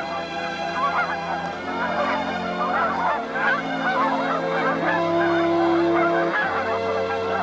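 A flock of geese honking, many short calls overlapping throughout, over slow background music of long held notes that change every second or two.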